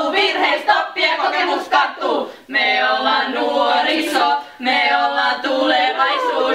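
Women's voices singing together, without instruments: short phrases at first, then two long held notes in the second half.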